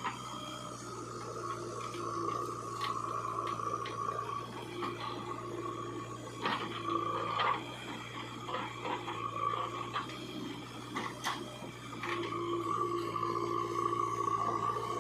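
Backhoe loader working mud: a steady motor hum with a whine that drops out and returns several times, and a few sharp knocks and scrapes, the loudest about halfway through and a single one a little later.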